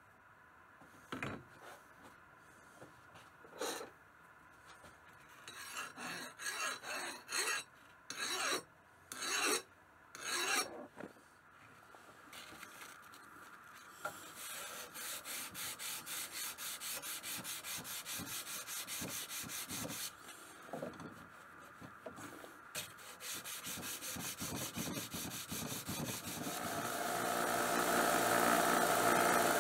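Hand file rasping along the edge of a clamped high-carbon steel knife blade, first in separate slow strokes, then in a steady run of about two to three strokes a second with a short pause. Near the end a small bench belt sander starts up and runs steadily.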